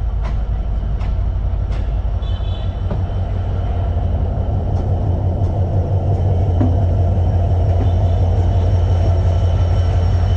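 Diesel locomotive passing close by at low speed. Its engine gives a steady low drone that grows a little louder as the locomotive draws alongside, with a few faint clicks over it.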